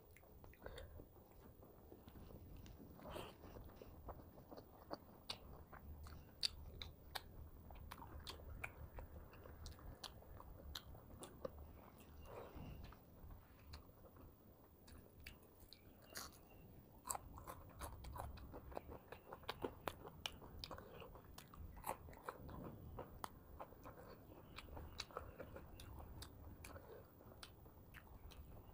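A person chewing and crunching food close to a clip-on microphone, with many small crackles and clicks throughout.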